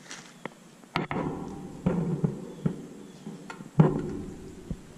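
Several sharp knocks and clanks, the two loudest, about a second in and near the end, each followed by a short ringing hum that dies away.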